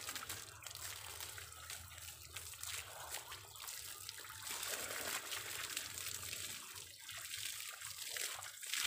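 Water from a garden hose pouring over a person's head and body, a steady splashing spatter.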